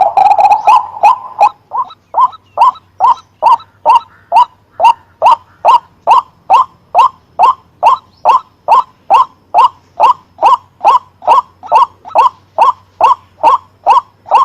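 White-breasted waterhen calling: a rapid run of notes for the first two seconds, then one call repeated evenly about two to three times a second.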